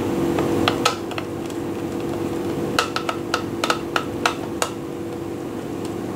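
Screwdriver working the terminal screws of a panel meter to free the wire lugs: small sharp metal clicks, a couple about a second in and a quick run of about eight between about three and four and a half seconds, over a steady hum.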